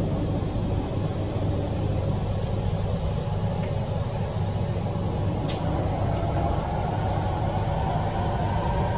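Beijing Subway Line 8 train heard from inside the carriage: a steady low rumble of the running train as it pulls into a station, with a faint whine building over the second half and one sharp click about halfway through.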